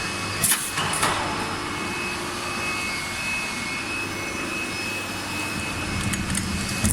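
Steady running noise of an injection moulding machine, a constant mechanical hum, with a few short sharp clacks about half a second and a second in and again at the end.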